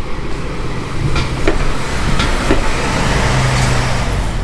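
Motor vehicle running: a steady low engine hum under a hiss of road or wind noise that swells in the second half, with a few short clicks about a second or two in.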